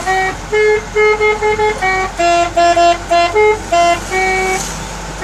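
Bus telolet horn, a multi-trumpet air horn, playing a quick tune of short steady notes at changing pitches, in little runs with brief gaps and one longer held note near the end.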